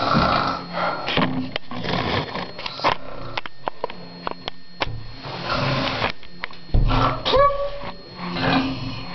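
Rustling, bumps and clicks of a handheld camera being moved and handled at close range, with short noisy rushes every few seconds and a brief squeaky sound about seven seconds in.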